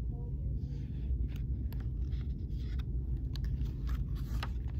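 Pages of a hardcover picture book being handled and turned: soft paper rustles and a few small clicks over a steady low background hum.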